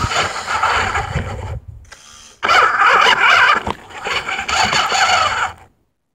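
Small toy RC car's electric drive motor and gears whirring in three bursts of driving, each a second or two long, then cutting off abruptly near the end.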